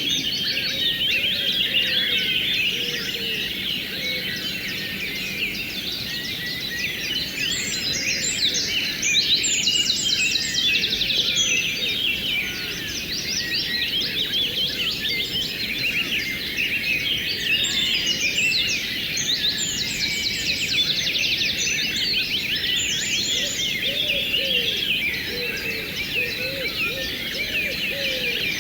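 A chorus of many songbirds chirping and trilling without pause, with repeated fast trills every several seconds, over the steady rush of flowing river water.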